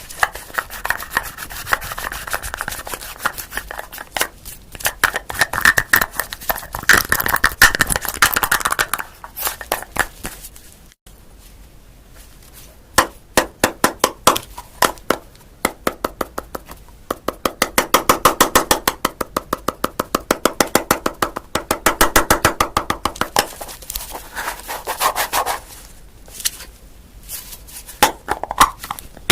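Objects handled close to the microphone: runs of rapid clicking and tapping mixed with rubbing and scraping, stopping and starting several times.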